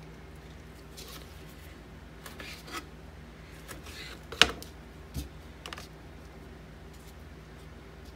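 Kitchen knife clicking and tapping against a plastic cutting board as habanero peppers are cut in half, with soft knocks of pepper halves being set on a plastic dehydrator tray. The sharpest click comes about four and a half seconds in, followed by a duller thump. A steady low hum runs underneath.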